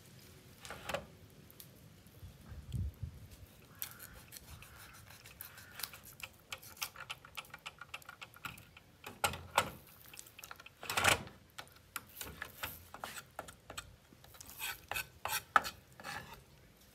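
Knife scraping and tapping on a wooden cutting board and metal tray while a whole fish is cleaned: a string of short clicks and scrapes, with two louder knocks midway.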